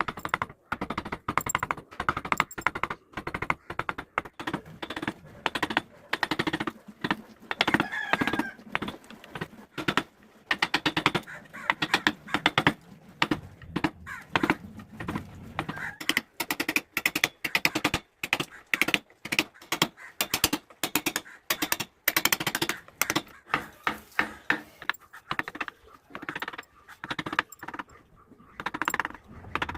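Hand carving tools cutting into wood: a quick, irregular run of knife or chisel strokes, clicking and knocking, with a few short squeaky scrapes.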